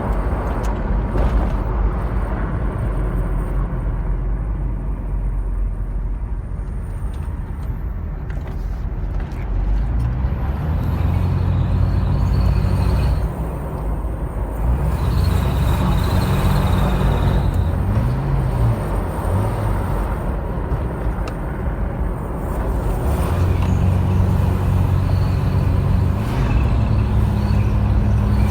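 Toyota Land Cruiser 80 series running, with the weird noise from its front end that is being recorded; a low hum grows stronger about a third of the way in, and a thin high whine comes and goes a few times.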